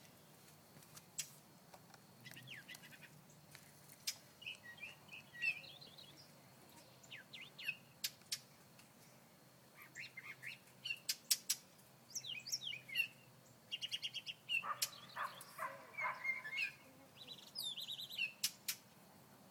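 Small songbirds chirping in short, repeated bursts of calls, with scattered sharp clicks, busier in the second half: parent birds calling over their grounded chick.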